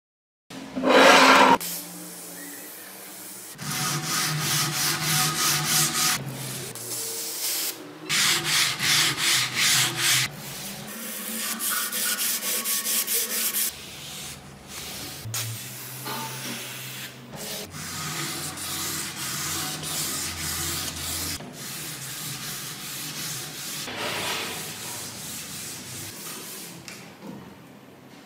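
Sandpaper worked by hand over a rusty kukri's steel blade, in runs of quick back-and-forth scraping strokes a few seconds long with short pauses between, to sand off the rust. A short loud noise sounds about a second in.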